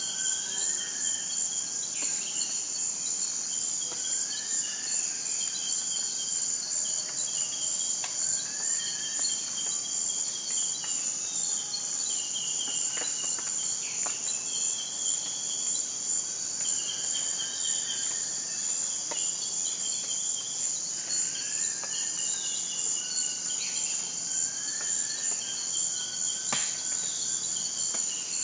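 Steady high trilling chorus of crickets or other insects. Short chirping calls rise and fall over it every second or two, with a few faint clicks.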